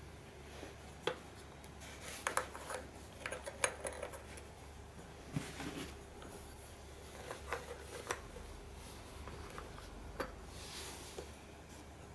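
Small metal clicks and clinks as the metal cockades and fittings of a leather pickelhaube are handled and pressed back into place on the helmet's sides, in irregular clusters.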